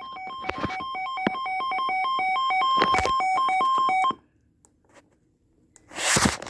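Emergency alert tone: an electronic warble of two pitches alternating rapidly, growing louder for about four seconds and then cutting off abruptly. It heralds a severe thunderstorm warning coming through on the Emergency Alert System.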